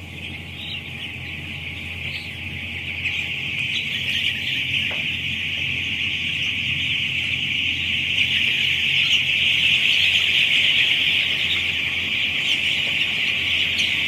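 A large flock of 10-day-old broiler chicks peeping all at once in a dense, continuous high chorus over a low steady hum. The chorus grows gradually louder.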